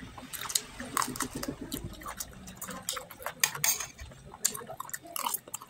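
Close-up eating sounds: chewing and wet mouth clicks, with a fork working at chicken and potatoes in a bowl, in short irregular clicks and taps.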